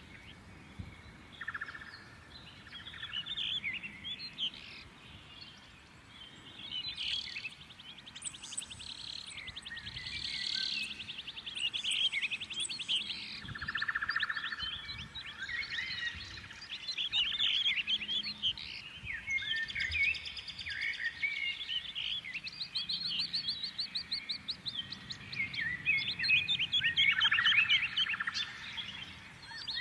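Several songbirds singing and calling over one another, with quick chirps, short whistles and fast rattling trills.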